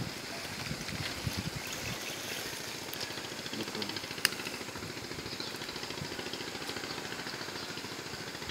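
Steady outdoor background noise with a fine, rapid high flicker and a fluttering low rumble, and one sharp click about four seconds in.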